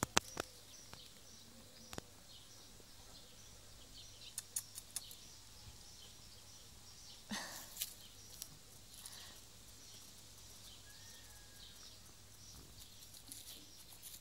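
Quiet outdoor ambience with faint bird chirps, a few soft clicks, and a brief scuffing rustle about seven and a half seconds in.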